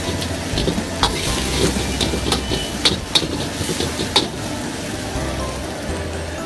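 Shrimp stir-frying in a wok: a steady sizzle, with the metal ladle scraping and clanking against the wok about five times in the first four seconds.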